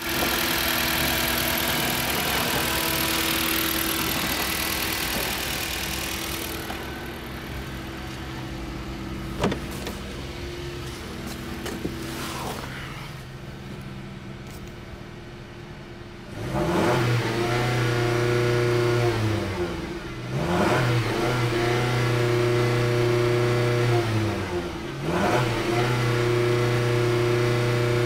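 2007 Dodge Caliber's four-cylinder engine, with 86k miles, running at a steady idle for the first half; a little past halfway it is revved up and held at high revs three times, dropping back briefly between each.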